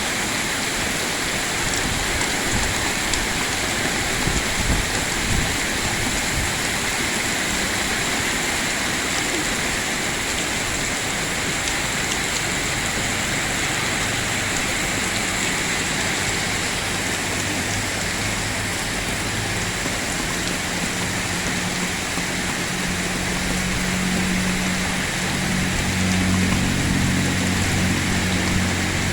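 Heavy rain pouring steadily. About halfway through, a low vehicle engine hum joins it and grows stronger toward the end.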